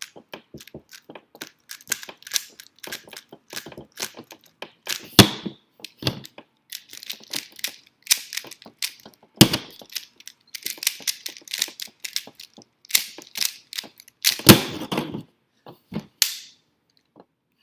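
A Rubik's cube's plastic layers being turned quickly by hand, a fast, irregular run of sharp clicks and clacks, with a few louder knocks at about five, nine and a half and fourteen and a half seconds.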